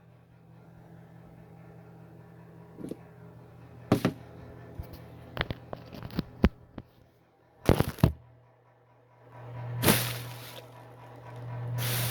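Space heater's fan running with a steady low hum, its airy whoosh swelling up and dying back twice near the end. A few sharp clicks and knocks come in the first two thirds.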